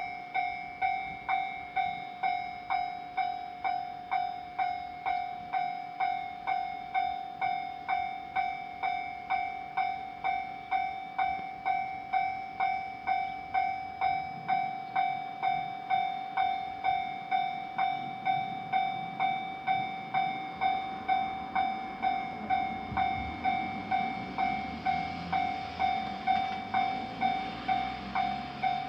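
Japanese railroad-crossing warning bell ringing, a repeated electronic ding struck evenly, roughly two times a second. About two-thirds of the way in, the rumble of a passing train rises beneath it.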